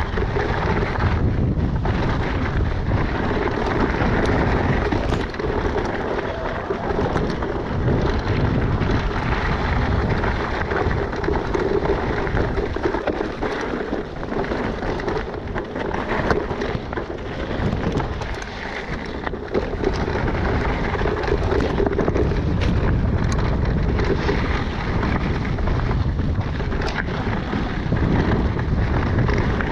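Wind buffeting the microphone of a mountain biker's camera, over the crunch of tyres on loose gravel and stones, with frequent small knocks and rattles from the bike as it rides over bumps on a dirt singletrack.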